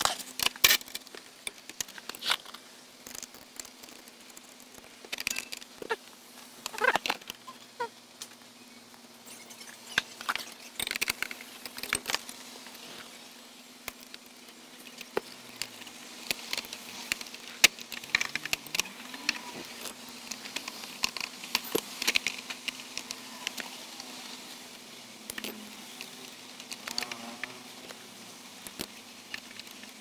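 Wiring harnesses and plastic connectors being handled under a car dashboard: irregular rustles, clicks and snaps of wire and plastic, over a steady faint hum.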